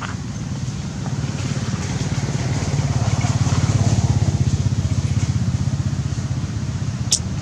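A motor engine running with a fast, even pulse, growing louder to about four seconds in and then fading, like a vehicle passing by. A short, sharp high chirp comes near the end.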